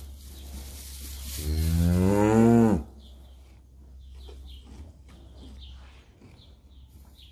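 A single long moo from cattle about a second and a half in, rising in pitch and dropping as it ends, over a steady low hum.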